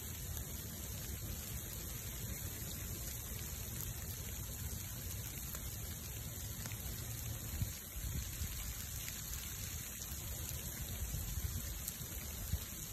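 Wood bonfire burning in falling rain: a steady hiss over a low rumble, with scattered small crackles and a couple of sharper pops, one a little past halfway and one near the end.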